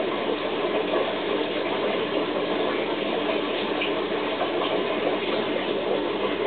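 Steady rushing water noise from a running aquarium, with a faint low hum beneath it.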